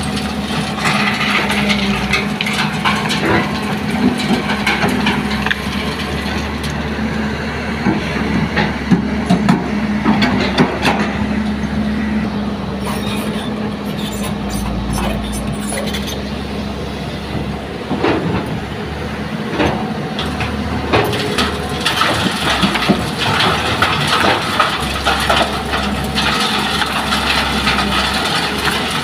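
Hitachi hydraulic excavator's diesel engine running steadily as its bucket digs earth and dumps sand and stones onto a steel sieve over a dump truck bed, with frequent sharp clatters and cracks of stones hitting the screen and the truck body.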